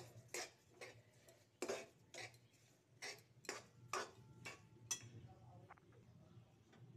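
Steel spoon stirring wet semolina in an aluminium pot, scraping and clinking against the pot's side and bottom about twice a second, the strokes growing fainter after about five seconds.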